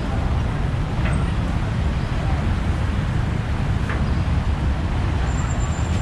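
Steady rumble of road traffic with a faint click or two and a brief high thin squeak near the end.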